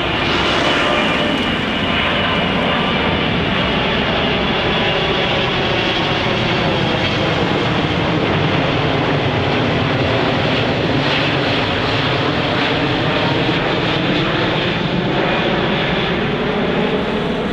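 KLM Boeing 777-200's two GE90 jet engines running at approach power as it flies low overhead on final approach with its gear down. A loud, steady roar whose tones sink in pitch through the middle and rise again.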